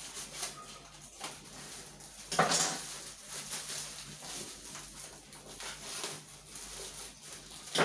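Plastic wrapping crinkling and rustling as wrapped wallpaper rolls are handled and the wrap is slit open, with one louder rustle about two and a half seconds in.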